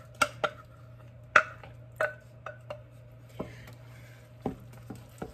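Wooden spoon knocking and scraping against a bowl and a stainless steel stockpot while blackberry pulp is scraped into the pot and the berries are stirred: about ten sharp, irregular knocks with a short ring.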